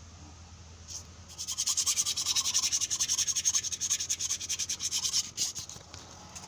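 Rapid back-and-forth rubbing on metal, starting about a second in and stopping near the end: the cylinder bore of a Caterpillar 3512 engine block being scrubbed clean to prepare it for a new liner.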